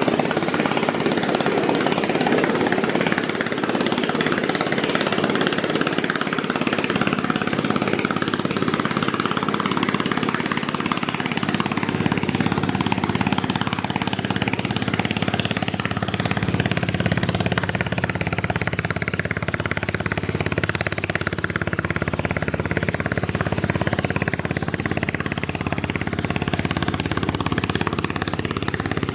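Engine of a river passenger launch running steadily under way at speed, its low rumble growing fuller about twelve seconds in.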